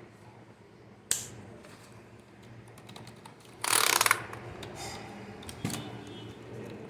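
Keys of a Dell KB216 membrane keyboard with plunger keys being pressed: a single click about a second in, a quick rapid run of keystrokes near the middle (the loudest part), and another click later.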